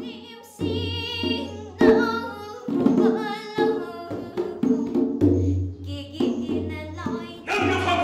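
A woman singing a folk song with a wavering vibrato, accompanied by a hand-played two-headed barrel drum that sounds low strokes about once a second.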